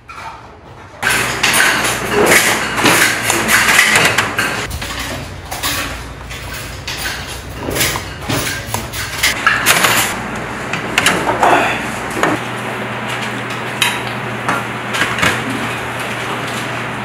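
Kitchen clatter of dishes and utensils, starting about a second in: a plastic rice paddle knocking against small bowls as rice is scooped from a rice cooker, and a ladle against a soup pot. There is a steady low hum underneath.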